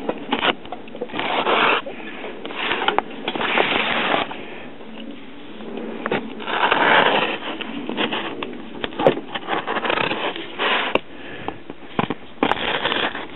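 Packing tape being pulled and peeled off a cardboard box by hand, the cardboard scraping and rustling: irregular rasping tears of half a second to a second, with a few sharp clicks between them.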